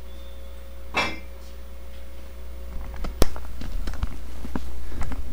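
Metal clinks and knocks of a dumbbell being handled at the end of a set of curls: one ringing clink about a second in, a sharp knock just after three seconds, then a run of small clicks and rattles, over a steady low hum.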